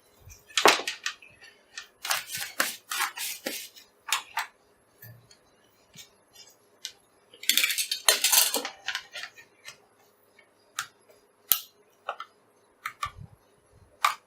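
Hard plastic and metal parts clicking and clattering as they are handled and set down on a work surface: irregular sharp clicks with two busier spells of rattling, and no drill motor running.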